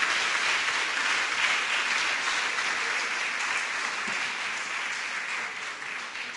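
Audience applauding steadily, tapering off toward the end.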